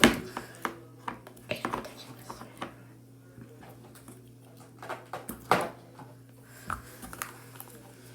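Scattered clicks, taps and light knocks from a plastic slime container being handled, over a steady low electrical hum.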